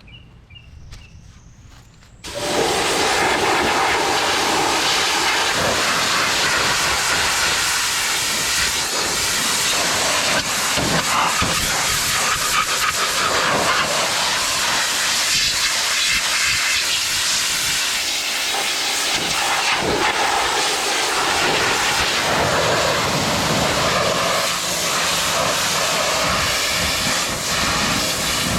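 Pressure washer spraying: a loud, steady hiss of the water jet that starts abruptly about two seconds in and runs on without a break.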